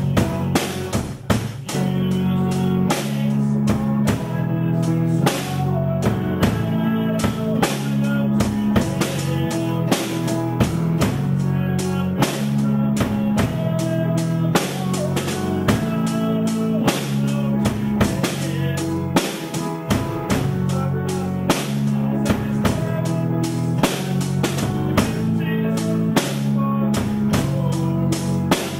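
A band playing live: a drum kit with bass drum keeping a steady beat under guitar.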